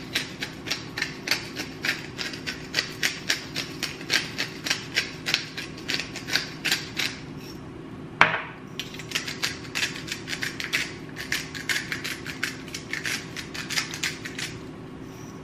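Hand-twisted spice grinders being cranked, ratcheting in quick clicks about four a second: first a pepper grinder, then a second grinder. One sharper knock about eight seconds in separates the two runs of clicking.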